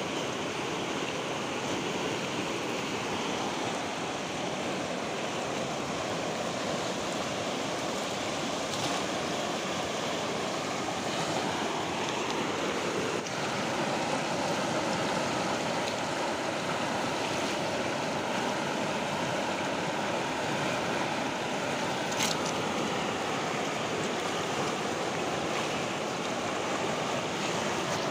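Steady rush of a fast, swollen muddy river, with wind on the microphone. A single sharp click comes about 22 seconds in.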